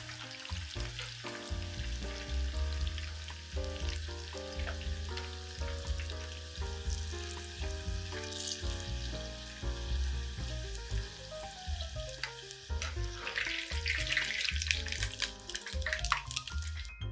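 Oil sizzling and crackling around cornstarch-coated eggplant pieces as they deep-fry in a saucepan, the crackle growing louder near the end. Background music plays throughout.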